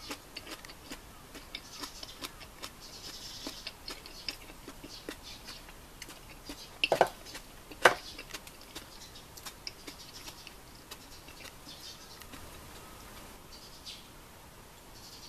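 Thick beef stew simmering in a small cast-iron cocotte, with irregular soft pops and ticks as bubbles burst. Two louder, sharp knocks come close together about halfway through.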